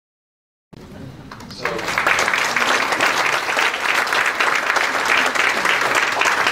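Audience applauding in a small room: silent for the first moment, then the clapping swells in about a second and a half in and goes on steadily.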